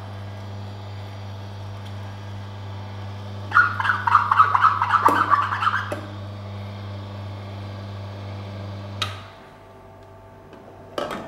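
Oscar DA1000 slow masticating juicer running at low speed with a steady low hum as gotu kola leaves are pressed through its auger. From about three and a half to six seconds, a louder crackling and squeaking comes as the leaves are pushed down the chute. The motor is switched off with a click about nine seconds in, and a short knock follows near the end.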